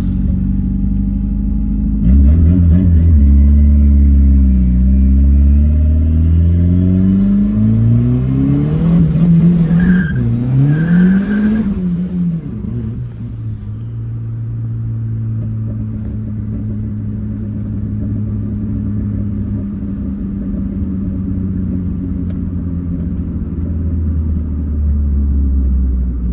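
Turbocharged, carbureted VW AP engine of a Gol accelerating hard under full throttle. The revs climb for about ten seconds with a couple of brief dips at the gear changes. About twelve seconds in the driver lifts off, and the engine drops back to a steady, lower run.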